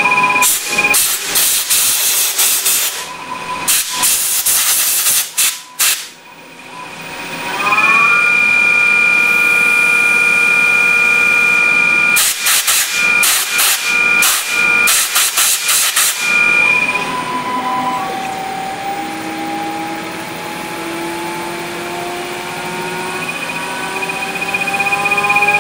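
CNC lathe whining steadily while machining a plastic part, broken by two stretches of hissing noise bursts. Near the end the whine climbs steadily in pitch during the parting-off cut.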